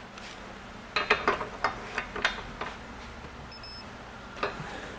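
Metal clinks and knocks of a socket on a digital torque wrench being fitted over a nut and washers on a steel test bar: a cluster of clinks about a second in and another near the end. A short high electronic beep sounds midway.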